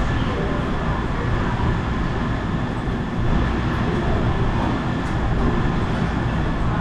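Steady rumble of kitchen ventilation fans running, with a faint thin high whine held above it.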